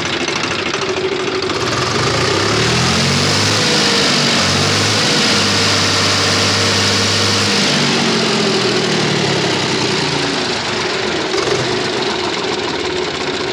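Swaraj 735 FE tractor's three-cylinder diesel engine running. It is revved up from idle a couple of seconds in, held, then eased back to idle. Its tappets have just been reset from far too loose, and the earlier tapping from the valve gear is gone.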